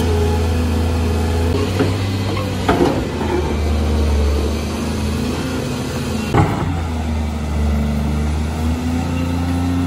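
Caterpillar 330D2 hydraulic excavator's diesel engine running steadily under digging load, its pitch shifting as the hydraulics work the boom and bucket. Two short knocks cut through, about a quarter of the way in and again past the middle.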